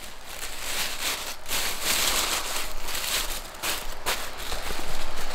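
Tissue paper rustling and crinkling as it is stuffed by hand into the top of a gift bag.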